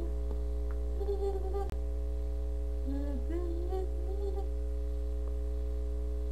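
Steady low electrical hum with several steady tones above it. Short, soft voice sounds rise and fall about a second in and again around three to four seconds in.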